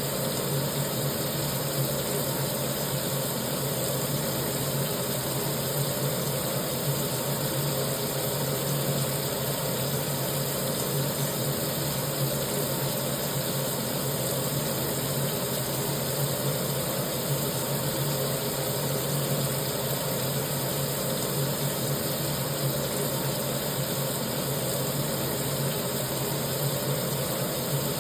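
Kitchen sink tap running steadily, water pouring into the sink basin in an even rush, with a steady low hum beneath it.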